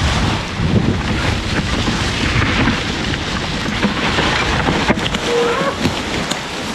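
Mountain bike ridden fast down a dirt bike-park trail: wind buffeting the microphone, with the bike and tyres rattling and knocking over rough ground and a sharper knock about five seconds in.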